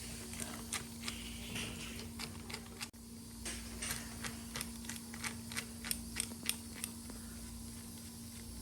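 Irregular light clicks and ticks of screws being loosened and parts handled as a Samsung microwave's cooling-fan motor is taken apart, more of them past the middle.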